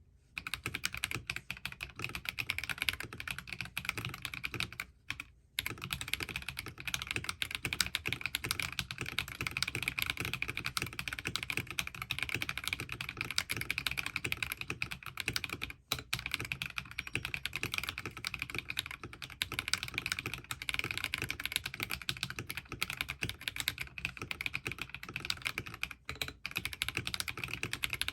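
Fast, continuous typing on a mechanical keyboard with NicePBT Peaches n Cream Lite PBT keycaps, a dense stream of key clacks, with a brief pause about five seconds in and another near sixteen seconds.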